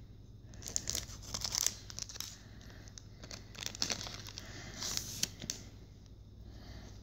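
A trading-card booster pack wrapper being torn open and crinkled by hand: irregular crackling rips starting about a second in and dying away a little before the end.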